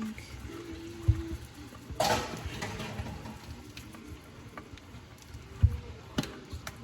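Kitchen work sounds: a few dull, irregular thumps, as of steaks being pounded with a meat tenderizer on a board, and a brief clatter about two seconds in.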